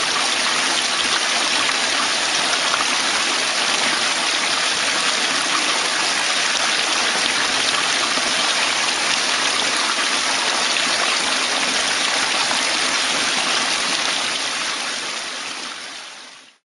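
Steady rush of splashing pond water, fading out near the end.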